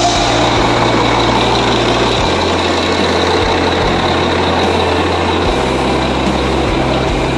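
Large buses idling, a steady engine rumble, under a deep hum that jumps abruptly to a new pitch about every three seconds.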